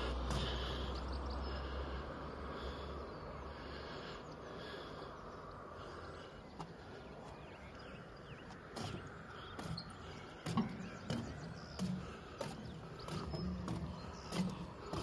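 Outdoor background noise with a low wind rumble on the microphone that stops within the first few seconds, then a series of short knocks like footsteps on a path in the second half.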